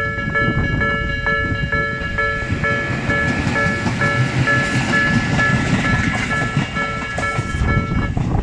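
Japanese level-crossing warning bell ringing at about two strokes a second while a Tobu 8000 series electric train runs past, its rumble and rail noise building through the middle. The bell stops near the end.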